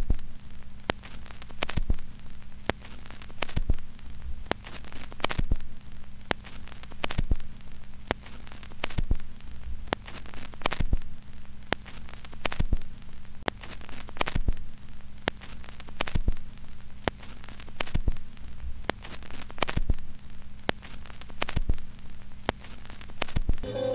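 Static crackle with scattered sharp pops over a steady electrical hum, the noise swelling and fading in a slow regular pulse about every two seconds.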